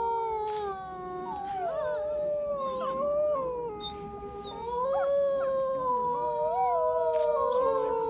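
Several wolves howling together in chorus, their long overlapping howls gliding up and down in pitch and crossing one another. The chorus thins briefly about four seconds in, then swells again.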